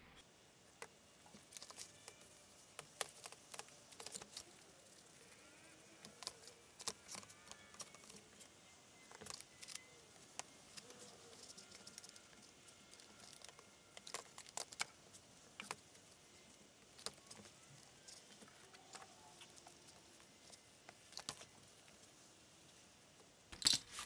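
Faint, scattered clicks and light taps of wooden and metal parts being handled on a workbench, with a louder burst of clattering near the end.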